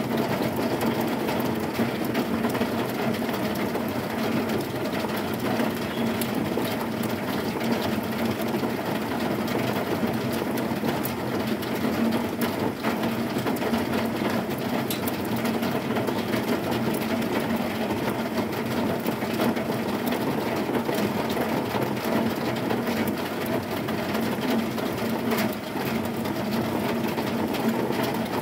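Heavy rain falling on a corrugated zinc roof: a steady, dense patter of many small ticks at an even level.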